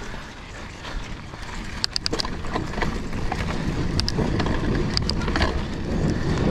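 Mountain bike riding along a trail: tyre and wind noise that builds from about three seconds in, with a few sharp clicks and rattles from the bike.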